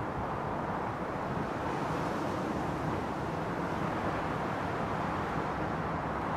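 Steady outdoor beach ambience: an even, unbroken wash of low noise with no distinct events.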